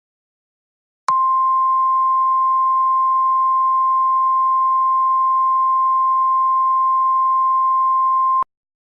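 Emergency Alert System attention signal: the single steady 1050 Hz weather-alert tone, starting about a second in, held for about seven seconds, then cutting off abruptly. It marks the start of a new alert message.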